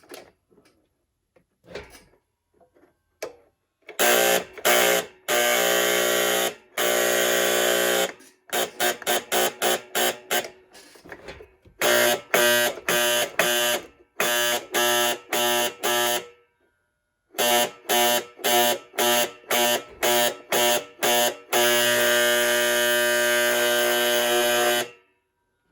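A buzzing fire-alarm horn sounding in changing signal patterns: long blasts, a fast run of short pulses, evenly spaced pulses, and a steady blast of about three seconds near the end.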